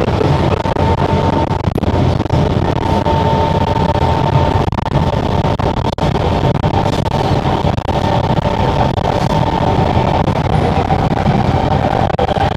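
Singapore MRT train running, with a steady low rumble and a thin, steady high whine throughout.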